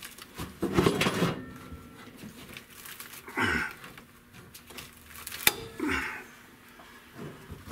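Hand-work noises of a clamp being set onto a flat steel plate on a car roof: a scrape, a couple of soft rustles and one sharp metallic click about five and a half seconds in.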